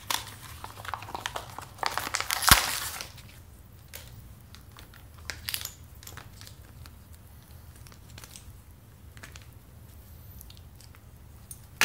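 Rustling and crinkling of packaging as a coiled anchor rope is handled and unwrapped, with a sharp snap about two and a half seconds in. After that there are only a few small clicks and faint handling noise.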